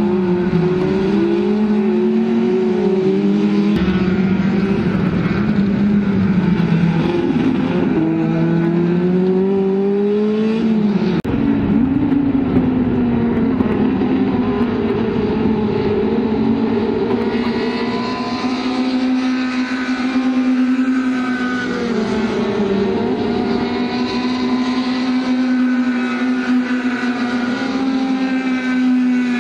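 Several racing cars' engines running hard around a circuit, overlapping, their pitch climbing under acceleration and falling away into corners. One climbs steeply and drops suddenly about eleven seconds in.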